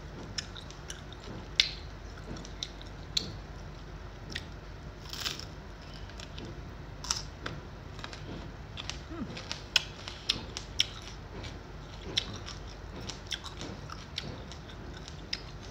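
Raw bitter melon being bitten and chewed, with many sharp, separate crunches.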